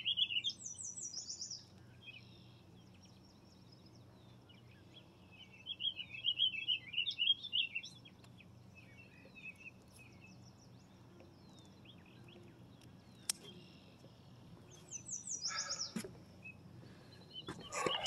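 Songbirds singing: bursts of warbling chirps, with a high, quickly repeated descending trill twice, over a quiet background hum. A brief rustle comes near the end.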